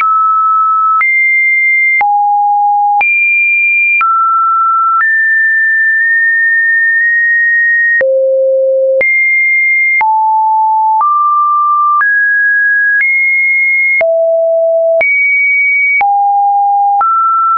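Computer-generated sine-wave test tones: a run of pure beeps, one per second, each at a new pitch jumping up or down between low and high, with a small click at every change.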